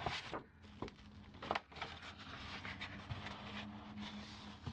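Fingernails scratching and brushing across the paper of an old calendar, with two sharper clicks, the loudest about a second and a half in, over a low steady background hum.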